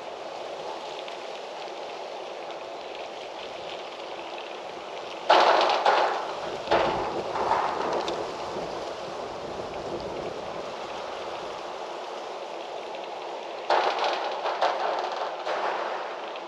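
Wind rustling through trees, a steady hiss with two sudden stronger gusts, one about five seconds in and one near the end, each dying away over a couple of seconds.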